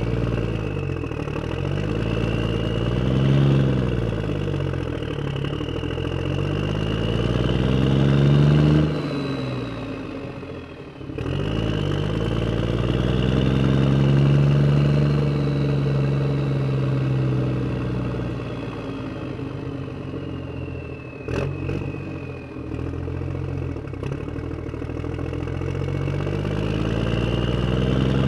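Engine running and revving, its pitch rising and falling again and again. It dips briefly about ten seconds in, and two sharp clicks come about 21 seconds in.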